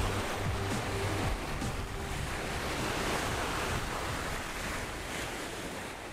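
Background music with stepped bass notes and a light regular tick about once a second, over a steady rushing noise, fading out near the end.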